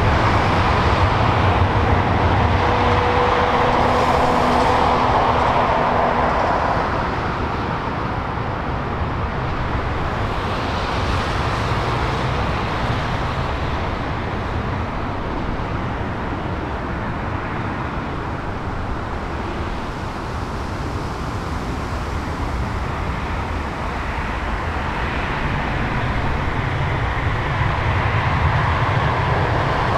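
Boeing 747's four jet engines at climb power as the airliner climbs away after takeoff: a broad rumble, loudest in the first several seconds, easing through the middle and swelling again near the end.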